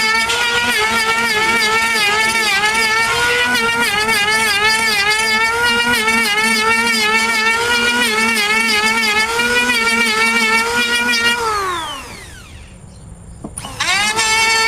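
Electric woodworking machine running at full speed with a wavering whine that dips as the wood loads the cutter. About twelve seconds in it is switched off and winds down with a falling whine, then is started again near the end and spins back up with a rising whine.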